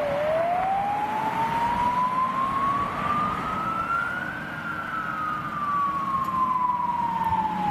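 Wail siren of a Volvo FL290 fire engine on an emergency run, one slow sweep rising in pitch for about four seconds and then falling back, over a low steady hum.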